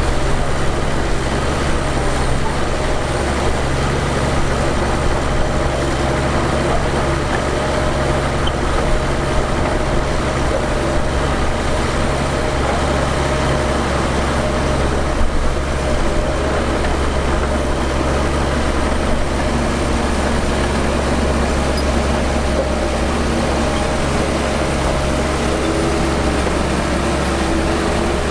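Heavy earthmoving machinery's diesel engine running steadily at an even level, with a constant low drone.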